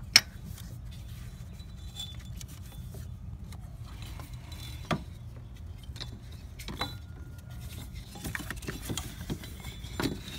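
Old toothed rubber timing belt being worked off an engine's sprockets and pulleys by hand: scattered light clicks and knocks of the belt and hands against metal parts, the sharpest just after the start, over a steady low hum.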